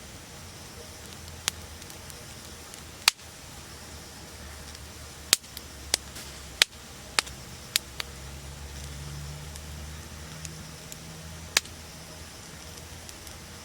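Wood bonfire crackling: scattered sharp pops, several in quick succession around the middle, over a steady soft hiss, with a low rumble underneath.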